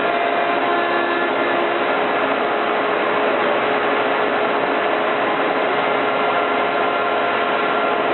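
CNC router spindle with a 1/4-inch bit machining MDF: a steady, loud whine of several even tones over the hiss of the cut.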